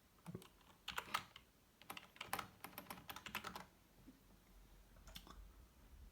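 Typing on a computer keyboard: a run of key clicks through the first three and a half seconds, then a couple more about five seconds in.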